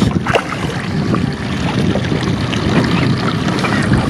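Steady wind buffeting the microphone, with a few small knocks and clicks.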